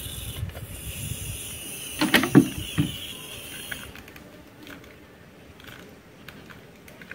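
Handheld butane gas torch hissing as it flames the inside of a wooden hive box to kill larvae, cutting off sharply about four seconds in. A few wooden knocks around two seconds in as the box is handled, then light clicks from the torch and box.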